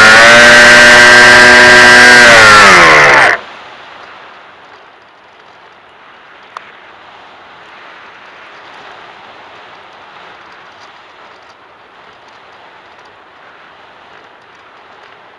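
Brushless electric motor and propeller of an FPV fixed-wing plane whining loudly, sagging in pitch and then cutting off abruptly about three seconds in. After that only a faint steady rush of air over the airframe as the plane glides unpowered, with a single click about six and a half seconds in.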